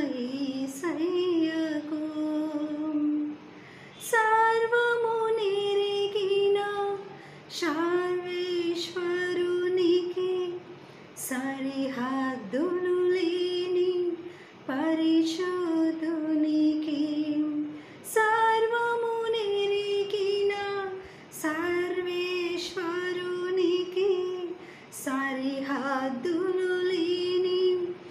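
A woman singing a Telugu Christian hymn (kirtana) solo, a single voice holding long, wavering notes in phrases of about three to four seconds, with short breaks between them.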